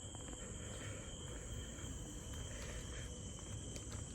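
Night insects chirring steadily in a high, unbroken drone, taken for crickets, over a low rumble.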